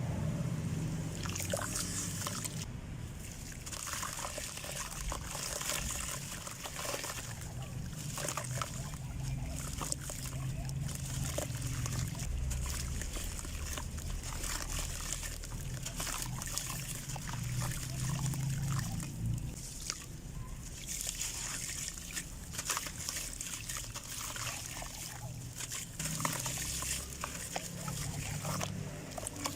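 Small molded shapes of red dirt crumbling into water: a steady wet trickle and slosh dotted with many small crackles as the grains break apart.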